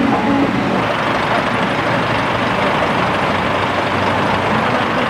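Heavy truck engine running steadily, mixed with road traffic noise: an even, unbroken rumble and hiss.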